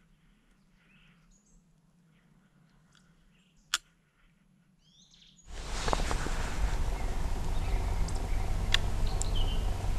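Quiet evening woodland with faint, short bird chirps and a single sharp click about four seconds in. About halfway through, a much louder steady hiss with a low hum sets in abruptly, with a few more faint chirps over it.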